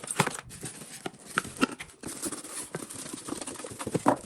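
Packaging rustling and crinkling, with many scattered knocks and taps, as the electric kettle's box is unpacked.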